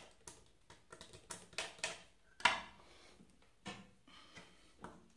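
Irregular light clicks and taps of hands handling wire and small tools on a plywood workbench board, about a dozen in all, the loudest about two and a half seconds in.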